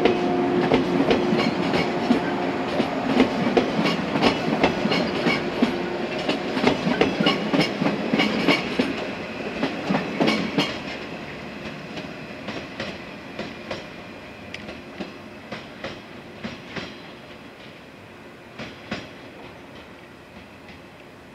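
JR 115 series electric train (Okayama set D26) running past and away, its wheels clacking over rail joints in an uneven stream of clicks, with a steady hum in the first few seconds. The sound fades steadily as the train recedes, the clacks thinning out in the second half.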